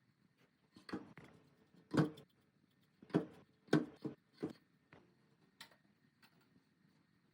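A series of irregular knocks and clunks, about seven in all, the loudest about two seconds in and just under four seconds in.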